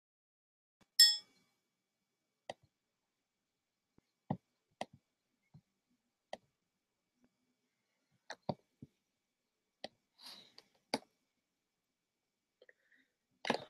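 A short bright computer chime about a second in, then scattered light clicks and knocks from someone handling the computer, with dead silence between them.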